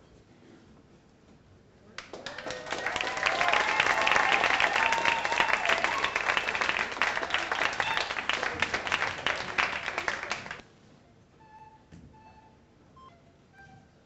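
Audience applauding and cheering, starting about two seconds in and cutting off suddenly near the end, followed by faint short high tones.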